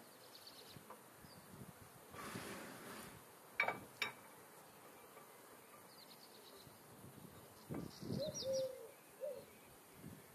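Quiet outdoor yard ambience with small birds chirping now and then. Two sharp metal clinks come about three and a half and four seconds in, from a hand tool against the tractor engine. A short lower bird call follows near the end.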